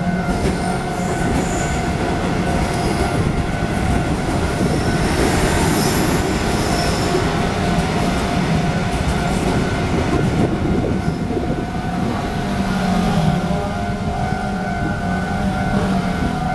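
Taiwan Railways electric multiple unit commuter train passing over a level crossing, wheels rumbling and squealing on the rails, with the crossing's warning signal sounding steadily underneath.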